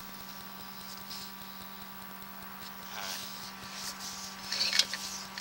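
Steady electrical hum from a sewer inspection camera rig, with faint hiss. Near the end come scratchy clicks and crackles as the camera head and push cable work through a grease and debris blockage in the drain line.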